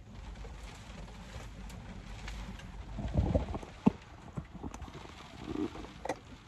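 Steady low rumble of wind and rain on the van, with a burst of handling thumps about three seconds in and a few sharp knocks and clicks as the camera is moved.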